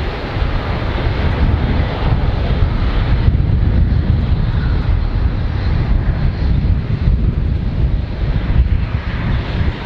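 Airbus A350-900 jet airliner's Rolls-Royce Trent XWB turbofans running on departure: a loud, steady rumble with a hiss above it that drops back a little about three seconds in.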